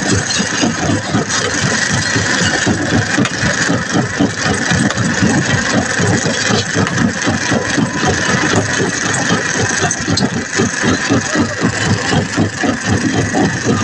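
Excavator engine running steadily with a fast, even pulsing beat.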